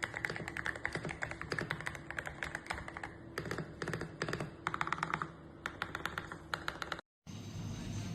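Rapid typing on a mechanical keyboard fitted with Outemu switches, a dense, irregular run of key clicks that cuts off suddenly about seven seconds in, followed by a low steady hum.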